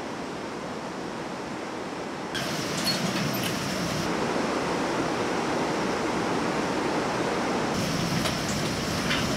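Fast-flowing white-water river rushing, a steady wash of noise whose tone shifts abruptly about two and a half seconds in and again near the end.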